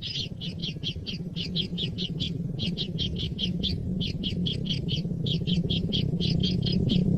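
Bird chirping rapidly: short high chirps about five a second, in runs with brief breaks. Under them is a low rumble that grows louder toward the end.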